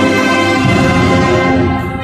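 Procession band playing a slow hymn in sustained held chords, with a short dip and change of chord near the end.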